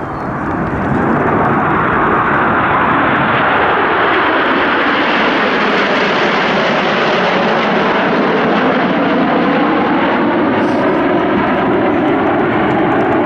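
Jet aircraft flying past, a loud engine roar that swells within the first second and then holds steady.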